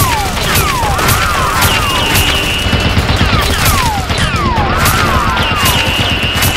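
Dubbed gunfire sound effects: a string of shots laid over a looping electronic track of falling, whistling zaps and a steady high tone that repeats about every two seconds.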